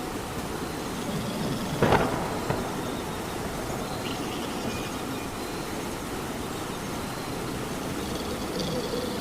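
Steady rain, with a sudden loud crack about two seconds in.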